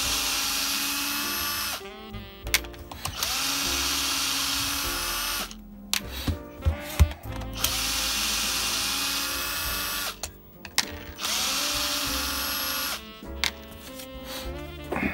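Small electric power tool motor run in four bursts of about two seconds each, spinning up at the start of each, with clicks and knocks between the runs.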